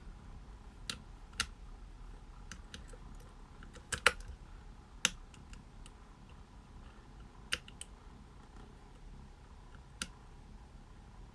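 Sharp, irregular metal clicks, a second or more apart, from a lock pick working the levers of a Chubb Union 110 five-lever mortice lock during picking. The loudest clicks come about four and five seconds in.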